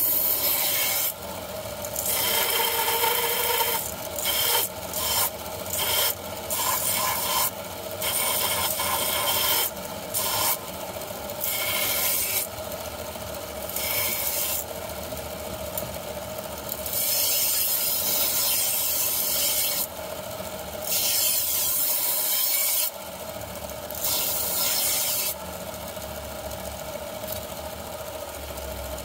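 Knife blade being sharpened on a running belt grinder: a steady motor-and-belt tone with loud rasping hiss each time the blade is pressed to the abrasive belt. The passes come and go throughout, some under a second, others several seconds long.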